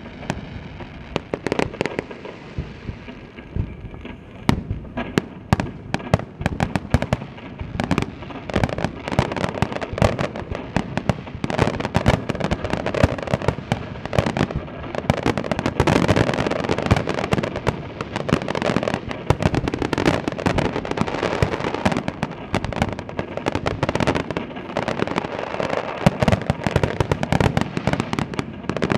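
A star mine, a Japanese rapid-fire barrage of aerial firework shells, bursting in dense, overlapping bangs with continuous crackle. The barrage grows denser and louder about halfway through.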